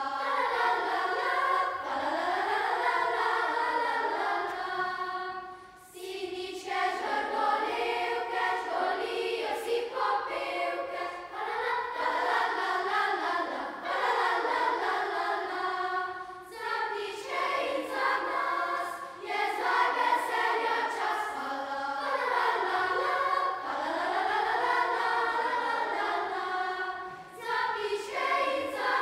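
A children's youth choir singing, its phrases broken by short pauses about six and sixteen seconds in.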